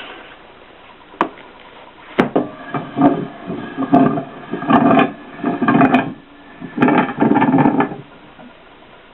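Alexanderwerk bookbinding press being worked: a sharp click, then about six creaking, grinding strokes of metal on metal, each lasting about half a second to a second.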